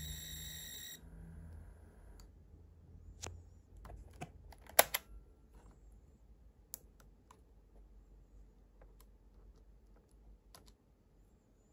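A steady high tone with overtones, the cassette data signal of a program loading from the Sharp CE-125 microcassette recorder, cuts off about a second in. After it come scattered sharp clicks from the Sharp PC-1251 pocket computer's keys and slide switch, the loudest about five seconds in.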